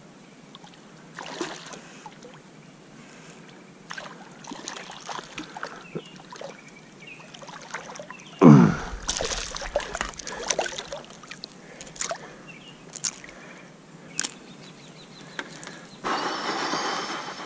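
River water sloshing and small splashes around a wader. About eight and a half seconds in comes one loud splash, falling in pitch, as a released fish kicks away. A steady hiss of about a second and a half closes the window.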